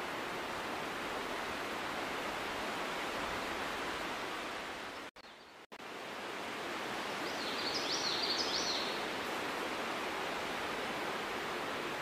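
Steady rushing outdoor background noise. It cuts out abruptly for about half a second midway, and about eight seconds in a short run of high chirps is heard over it.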